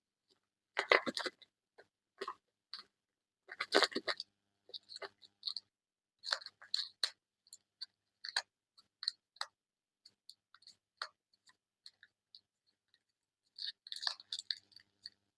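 Packaging being opened and handled by hand: crinkling, crackling wrapper in bursts about a second and four seconds in and again near the end, with many small clicks and ticks in between.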